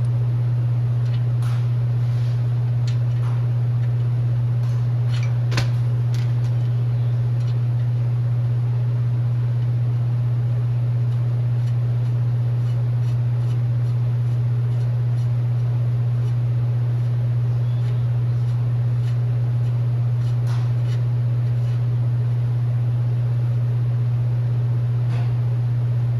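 A steady low hum throughout, with a few short light clicks and clinks scattered through it, the loudest about five and a half seconds in.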